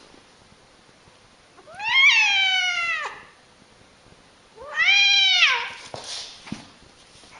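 Angry domestic cat giving two drawn-out yowling meows, each about a second long, rising and then falling in pitch, with a short breathy noise after the second.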